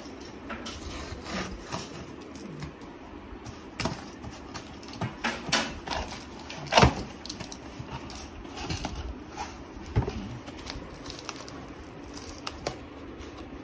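Cardboard box being handled and opened by hand: scattered scrapes and rustles of the cardboard flaps with a few knocks, the sharpest about seven seconds in.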